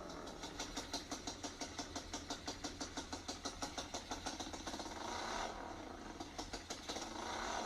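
Electronic dance remix in an instrumental stretch, a fast, even pulse of about seven beats a second over a steady low bass.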